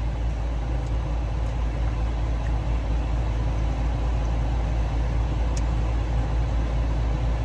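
Idling car engine and air-conditioning fan heard from inside the cabin: a steady low hum with an even rush of air over it.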